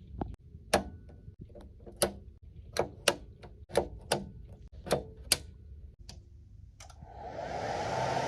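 A series of sharp clicks, about a dozen at uneven spacing, then a whooshing swell of noise that builds near the end.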